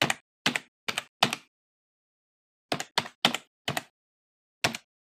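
Computer keyboard keystrokes in short runs: four quick keys, a pause of over a second, four more keys, then a single key near the end.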